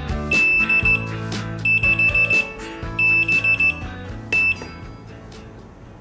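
Beamnova CAL-8B digital kitchen timer's alarm signalling the end of a countdown: a high-pitched electronic beep in quick clusters, repeating about every 1.3 seconds and stopping about four and a half seconds in.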